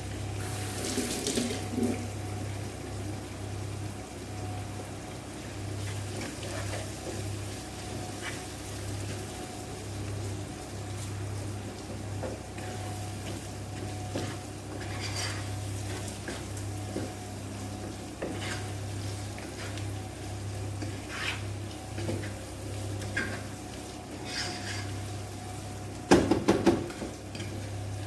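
Fried rice sizzling in a pan, with a steady low hum underneath and now and then a spoon scraping or tapping the pan. About twenty-six seconds in there is a loud clatter of the utensil against the pan.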